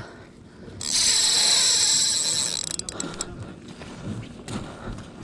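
A Penn spinning reel's drag buzzes loudly for about two seconds, starting about a second in, as line is pulled off the spool: a hooked coho salmon running. Scattered sharp clicks from the reel follow.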